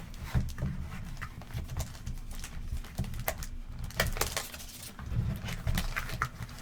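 Trading card box being opened and handled: irregular clicks, rustles and scrapes of cardboard and plastic wrapping.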